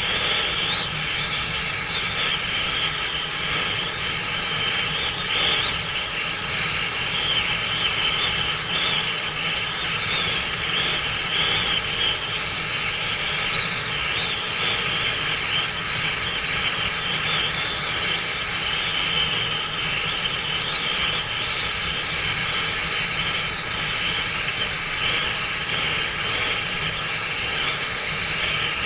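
Brazing torch flame hissing steadily as it heats a service access valve joint on a compressor.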